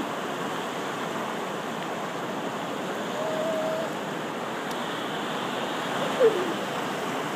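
Small ocean waves breaking and washing up the beach in a steady rush of surf. A high voice sounds briefly twice: a short held note about three seconds in and a louder falling note about six seconds in.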